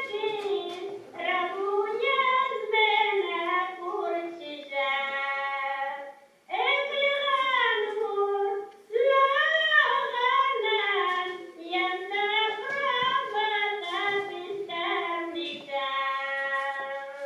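A recorded Rumeian (Azov Greek) folk song played back over small speakers: a single high voice sings a slow, unaccompanied melody in long phrases with held notes. It pauses briefly about six, nine and twelve seconds in.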